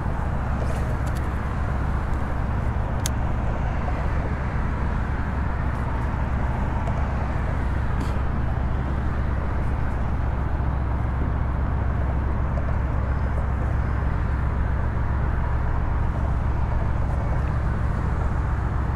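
Steady low rumble of road traffic on the causeway bridge, even and unbroken, with one faint click about three seconds in.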